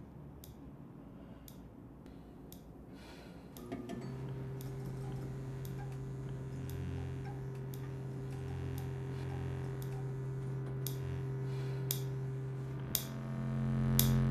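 Wall clock ticking about once a second. From about four seconds in, the steady electrical hum of a fluorescent ceiling light joins it and swells louder toward the end.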